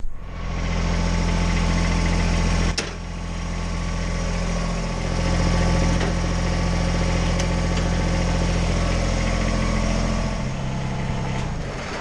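Kubota BX sub-compact tractor's diesel engine idling steadily, with a sharp click about three seconds in; the engine sound falls away shortly before the end.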